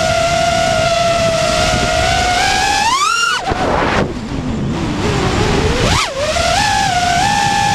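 FPV freestyle quadcopter's four T-Motor F60 Pro II 2700kv brushless motors whining steadily, heard from the quad's onboard camera. About three seconds in the whine rises sharply in pitch, then falls low and rough for a couple of seconds. It jumps up briefly about six seconds in and settles back to a steady whine, with wind rush underneath.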